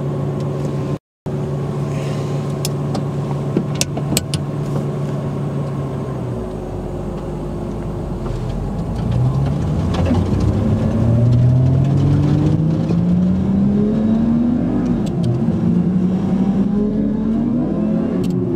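Twin-turbo Lamborghini Gallardo V10 heard from inside the cabin, idling steadily, then pulling away from a standstill and accelerating hard. The engine note climbs three times, dropping back at two gear changes.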